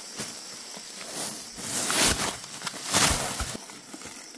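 Rustling and scuffing handling noises, with louder brushing swells about two and three seconds in.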